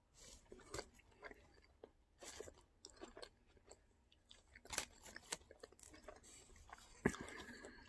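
Faint chewing and mouth sounds of a man eating a burger: soft, scattered smacks and clicks, with a few louder ones about five seconds in and again near the end.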